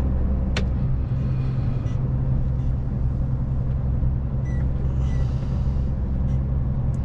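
A truck's diesel engine and road noise heard from inside the cab while driving: a steady low drone, with a single sharp click about half a second in.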